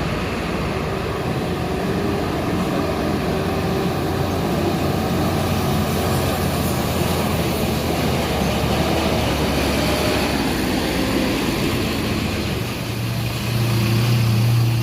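Large bus diesel engine running close by, a steady low drone that grows louder about thirteen seconds in as the engine works harder.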